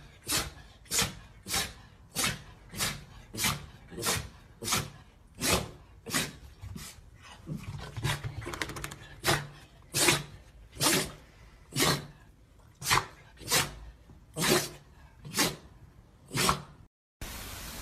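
A small dog yipping over and over in short, sharp barks, a little more than one a second, in a steady rhythm that stops shortly before the end.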